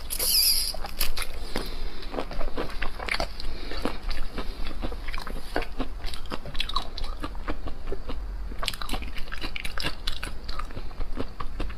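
Close-up eating sounds: a short sucking slurp at a piece of shell-on marinated seafood, then steady wet crunching and chewing with many small crackles and clicks.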